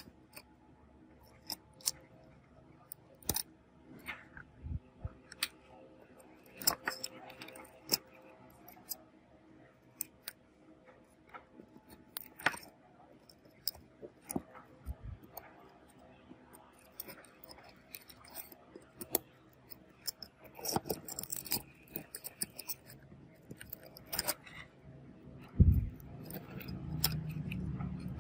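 Metal tweezers tapping, clicking and scraping against a phone's logic board, screws and metal frame: irregular small sharp ticks. Near the end comes a heavier thump, followed by low rubbing and handling noise as the board is worked loose from the frame.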